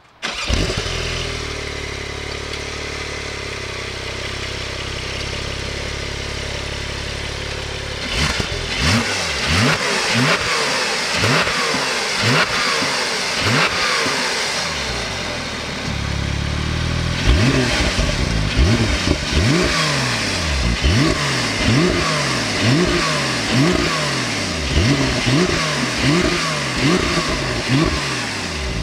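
Porsche 911 Turbo S (992) twin-turbo 3.7-litre flat-six firing up and idling steadily, heard at the tailpipes. From about eight seconds in it is revved over and over in quick blips, about one a second, each pitch climbing and dropping back to idle, with a short pause at idle around the middle.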